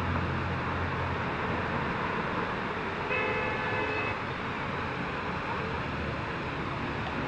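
Steady outdoor background noise, with a horn sounding once for about a second, roughly three seconds in.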